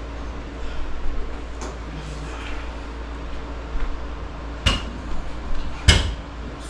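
Two sharp clacks of hard objects knocking, about a second apart and the second louder, over a steady low hum.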